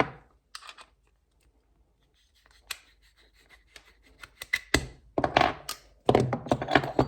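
Footpeg parts and hardware being handled: a knock, then scattered clicks, building into a dense clatter of small knocks in the last few seconds.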